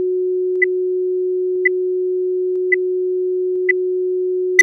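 Countdown leader sound: a steady low tone with a short high beep once a second, five beeps in all, the last one the loudest with a sharp click as the '2' comes up.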